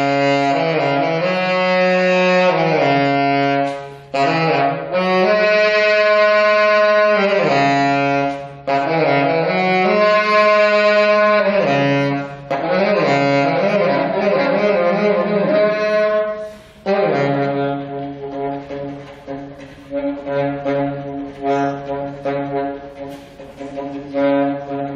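Saxophone playing a melody in long held notes, in phrases with brief gaps between them. About two-thirds of the way through it turns softer, with shorter notes.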